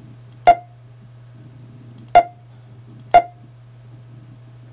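Three sharp computer mouse clicks, each with a faint tick just before it, as points are placed one by one along the outline of a shape. A steady low hum runs underneath.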